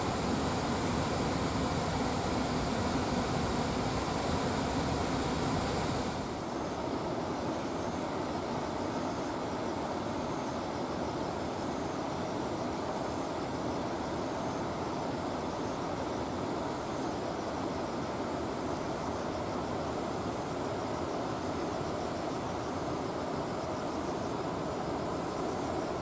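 River water pouring over a small concrete weir: a steady rushing noise. About six seconds in it abruptly becomes slightly quieter and duller, then runs on evenly.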